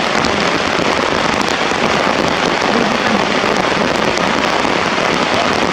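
Heavy rain pouring down, a dense, steady crackling hiss.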